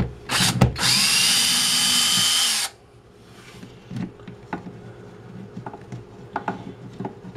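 Cordless drill-driver backing a screw out of a wall-mounted shelf bracket: a couple of short clicks, then the motor runs steadily with a whine for about two seconds and stops abruptly. Faint clicks and handling sounds follow as the bracket is taken off.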